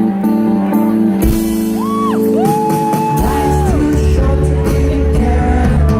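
Rock band playing a song's opening: sustained chords, a cymbal crash about a second in, and bass and drums coming in about three seconds in. Over them, two long high notes slide in and out.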